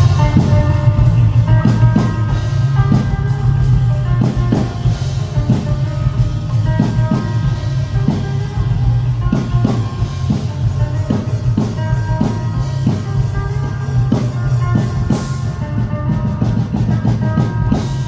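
Live rock band playing an instrumental passage: electric guitar, bass guitar and drum kit. A steady, loud bass line lies under held guitar notes, with drum hits at a regular beat.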